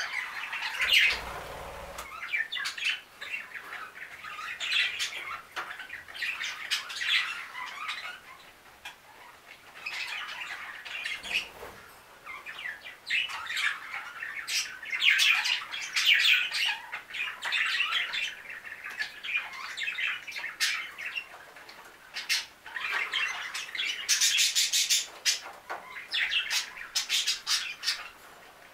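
A small flock of budgerigars chirping and chattering, a continuous warble of short chirps and squawks, with a denser, harsher run of squawks near the end.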